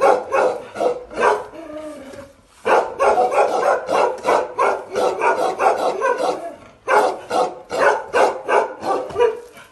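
Bakarwal dog barking aggressively in rapid volleys of several barks a second. There is a short lull about two seconds in, then a dense run of barks, and more spaced-out barks near the end.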